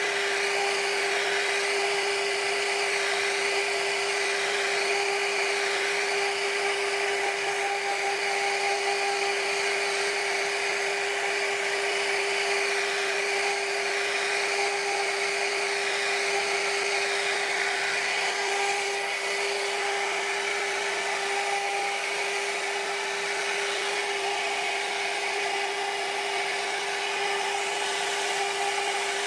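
CNC router spindle running at a steady high whine while its bit carves a relief pattern into a wooden door panel. The cutting hiss swells and fades as the bit moves through the wood.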